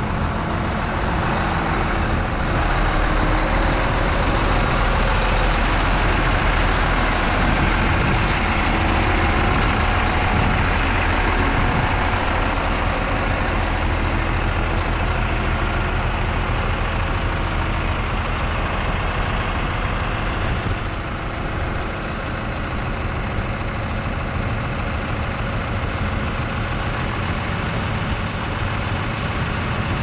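Diesel engine of a 1987 Peterbilt concrete mixer truck idling steadily. It is a little louder through the middle and eases off slightly about two-thirds of the way in.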